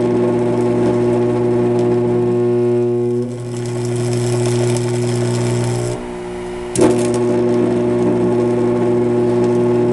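Carbon arc torch arc burning with a steady electrical buzz and hiss. About six seconds in the arc drops out, leaving only the welder's lower hum, then re-strikes with a sharp crackle a second later and burns on.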